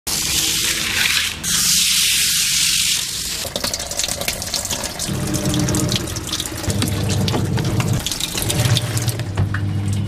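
Water gushing into a semi-automatic washing machine's wash tub. The strong rush ends about three seconds in and gives way to lighter splashing and clicks, with a low steady hum coming and going.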